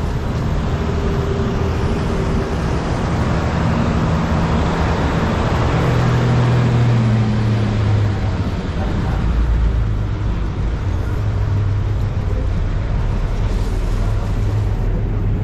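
A city bus's engine running close by as the bus creeps past in slow street traffic. The hum swells loudest about halfway through, then settles into a deeper rumble.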